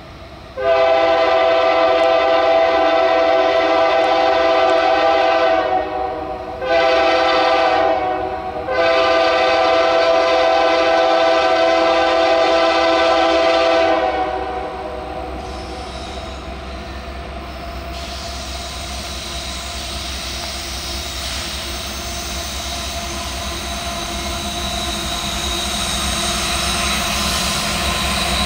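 Diesel locomotive air horn sounding a multi-note chord in a long, a short and a long blast, the pattern of a grade-crossing warning. It stops about 14 s in, and then the approaching train's engine and rail noise swell steadily, with a thin high tone near the end.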